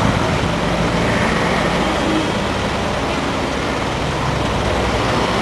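Steady road traffic noise with the low hum of a vehicle engine running.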